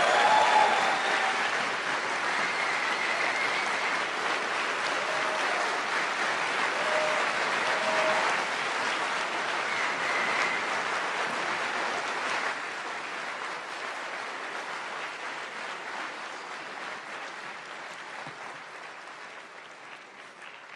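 A large audience applauding steadily, the applause slowly fading away.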